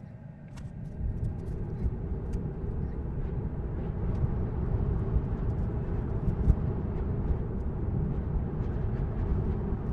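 Tyre and road noise inside a Tesla's cabin, coming up about a second in as the electric car pulls away from a stop and holds about 40 mph, with a few faint clicks.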